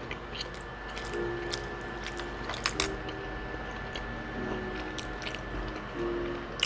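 Close-miked chewing and biting of food, with scattered wet mouth clicks and smacks.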